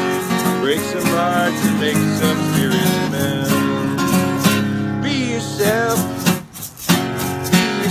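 Acoustic guitar strummed in a country rhythm, with a man singing over it. The strumming briefly drops away about six and a half seconds in.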